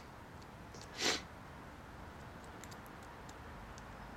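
Small metal parts of a car door lock cylinder being handled and fitted: a few faint light clicks, a short rushing scrape about a second in, and one sharp click near the end.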